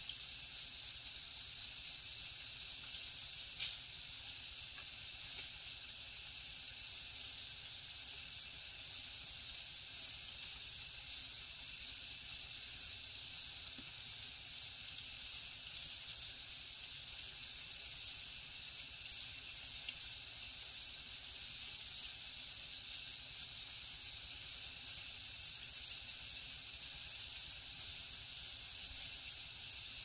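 Night chorus of crickets and other insects: steady high trills layered with pulsing calls. About two-thirds of the way in, a nearer cricket starts a loud, even chirping, several chirps a second, that becomes the loudest sound.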